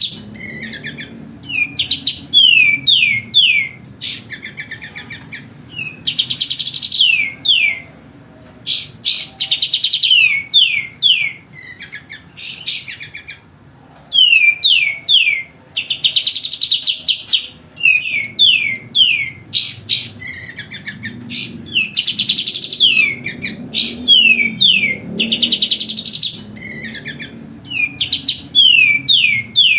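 Kapas tembak bulbul singing nonstop: phrases of rapid, falling whistled notes mixed with chattering trills, repeated every couple of seconds.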